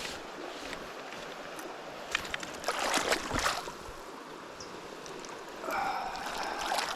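Steady rush of river water flowing, with a cluster of clicks and louder splashy noise about two to three and a half seconds in, and a brief louder scratchy sound near the end.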